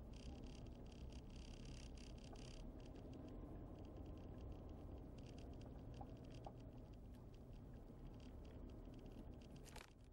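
Faint road noise of a car driving slowly: a steady low rumble with light crackling of the tyres, busier in the first couple of seconds.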